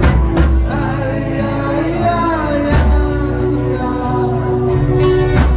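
Live band playing a song: a man singing over acoustic guitar, electric bass and a drum kit, with repeated drum hits.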